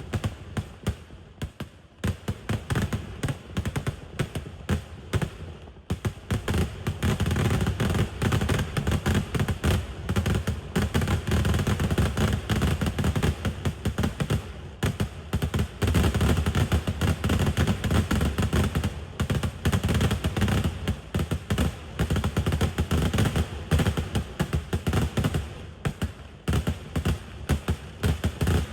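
Kerala temple-festival fireworks (vedikkettu) going off in a rapid string of bangs, fairly sparse for the first few seconds, then a dense, unbroken volley of explosions from about six seconds in.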